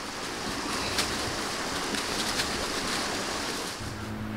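Shallow mountain creek flowing, a steady rushing of water. Near the end a low steady hum comes in.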